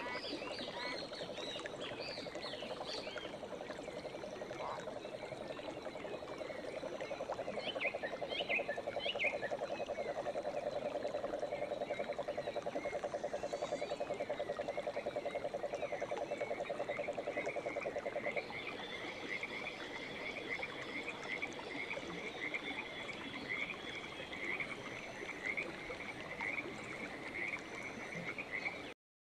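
Animal calls: a long low trill of fast pulses, frog-like, lasting about eighteen seconds, with short high chirps over it at the start and again about eight seconds in. Then a steady run of quick, higher-pitched chirps follows until the sound cuts off suddenly.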